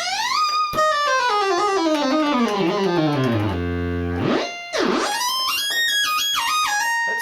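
Roland Juno-106 synthesizer fitted with the Kiwi-106 upgrade, playing a unison legato lead patch with portamento. It glides up, steps down note by note to a low held note, swoops down and straight back up, then climbs again in steps. The sound is fat and very moogie.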